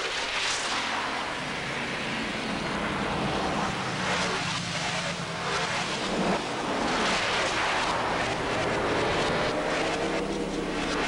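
Electronic soundtrack of noisy whooshing swells over a steady low tone, with a faint gliding tone returning near the end.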